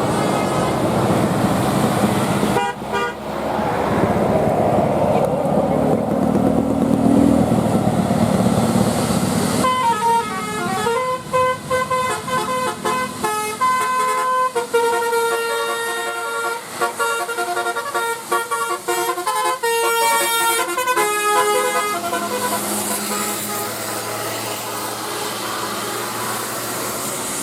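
A bus's 'telolet' multi-tone horn plays a quick melody of shifting notes for about twelve seconds, starting about ten seconds in. Before and after it there is steady noise of road traffic.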